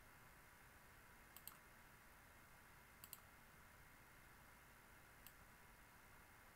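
Faint computer mouse clicks over a low steady hiss: two quick double clicks about a second and a half apart, then a single click near the end.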